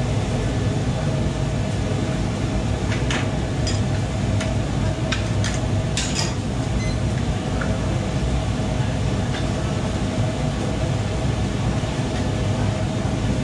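Steady drone of a commercial kitchen's extractor hood and lit gas wok burners, with a few sharp clinks about three to six seconds in.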